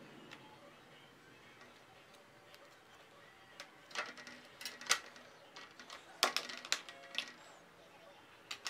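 Thin wire being wound by hand around a marker pen, giving scattered light clicks and ticks, with a cluster of sharper clicks in the second half. Faint music underneath.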